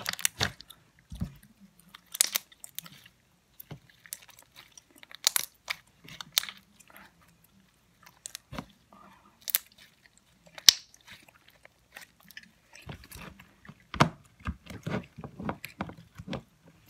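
Homemade slime being stretched, pressed and squished by hand close to the microphone, making irregular sticky clicks and pops that come thicker and faster near the end.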